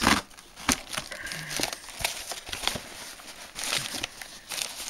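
A cardboard shipping box being opened by hand: its flaps pulled back and crumpled brown packing paper rustling and crinkling, in irregular bursts with sharp clicks. The loudest rustle comes right at the start.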